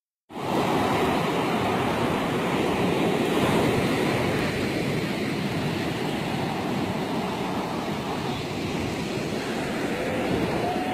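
Ocean surf breaking on a sandy beach: a steady rush of waves.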